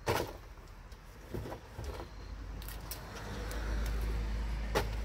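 A cardboard box is emptied out: a sharp thump, then a few light knocks and rattles of small items. About three seconds in a steady low rumble sets in and continues.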